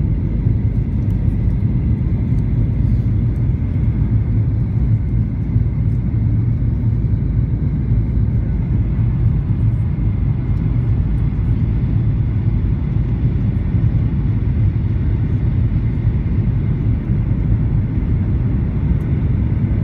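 Boeing 737 cabin noise on final approach with flaps down: a steady low rumble of engines and airflow, with a faint high whine.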